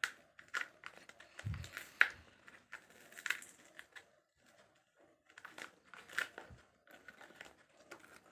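Double-sided tape being handled and stuck on, with crinkling and scattered small clicks, and a dull thump about one and a half seconds in.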